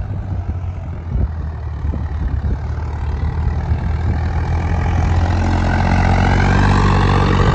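Swaraj 855 tractor's three-cylinder diesel engine running hard at full throttle under load, pulling a disc harrow through ploughed soil. It is a steady drone that gets louder from about five seconds in as the tractor comes close.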